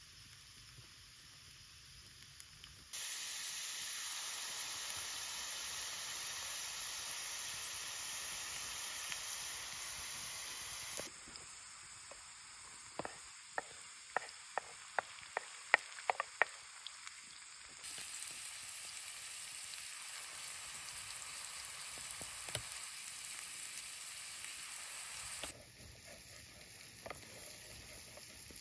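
Diced potatoes frying in a pan, a steady sizzle whose strength jumps up and down. In the middle comes a quick run of sharp taps as sliced red onions are scraped from a clay bowl into the pan, and near the end a wooden spatula stirs the pan over a quieter sizzle.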